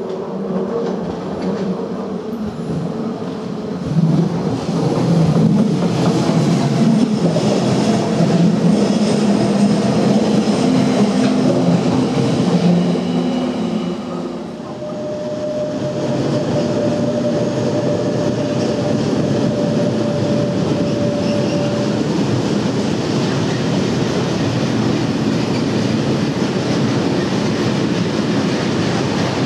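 An electric multiple-unit train passing close, its motor hum and rail noise loudest a few seconds in. About halfway, this gives way to a freight train of flat wagons loaded with steel plates rolling steadily over the rails, with a single high tone held for several seconds.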